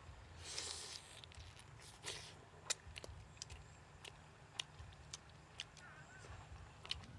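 Quiet eating sounds: roasted chicken wings being torn apart by hand and bitten, with scattered sharp clicks and a couple of brief rustling crackles.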